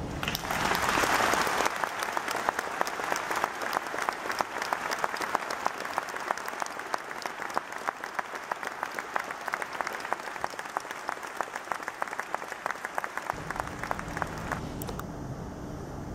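Large audience applauding: a loud swell of clapping at once, then steady, dense clapping that thins out and dies away near the end.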